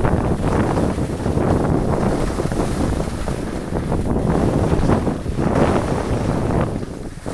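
Wind rushing over the microphone of a camera carried by a skier moving downhill, a loud, gusty buffeting that eases briefly near the end.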